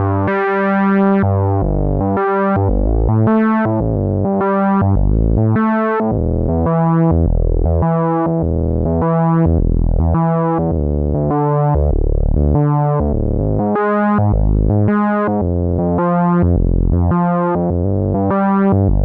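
Cherry Audio LowDown software synth, a Moog Taurus bass-pedal emulation, playing a deep sustained bass line with the mod wheel up. The tone brightens and darkens again about once a second, and the pitch steps between a few notes.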